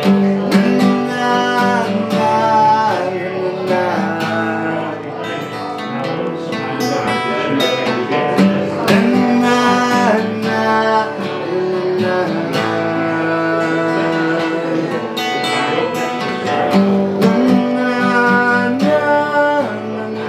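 Acoustic guitar played live, with strummed chords and picked notes running on without a break.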